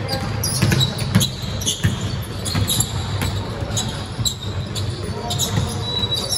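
Basketball being dribbled on a court: a series of sharp bounces, with a high sneaker squeak near the end.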